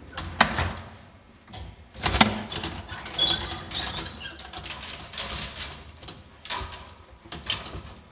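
An old wood-panelled lift with a folding metal gate: a series of sharp clanks and knocks with rattling in between, as its doors and gate are worked, with two short squeaks along the way.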